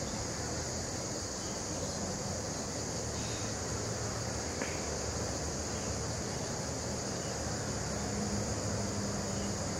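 Steady background noise: a constant high hiss with a low, even hum beneath it.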